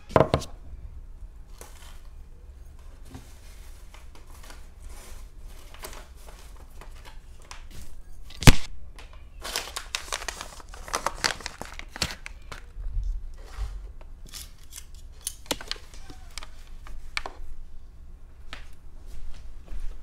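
Tableware and paper being handled on a table: a glass bowl set down at the start, a sharp knock about eight seconds in, then a few seconds of paper crinkling and scattered light clicks.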